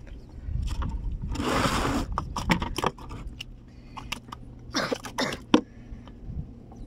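Close handling sounds of rustling and scraping with scattered clicks, from a float being made and tied onto a fish trap as a marker; two louder rustling bursts come about a second and a half in and about five seconds in.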